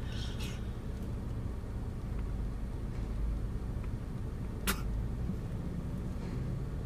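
Steady low rumble of a car's running engine, heard from inside the car's cabin, with one sharp click about two-thirds of the way through.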